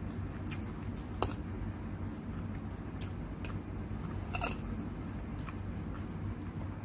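Metal fork and spoon clinking and scraping on a plate of fried noodles: a handful of sharp clinks, the loudest about a second in and a ringing one about four and a half seconds in, with chewing between, over a steady low hum.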